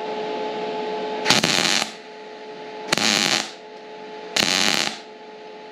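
MIG welder laying three short tack welds, each a crackling burst of about half a second, roughly a second and a half apart: a series of small tacks joining thin sheet steel to the thick VW Beetle chassis frame so as not to burn through the thin metal. A steady hum runs under the first second or so.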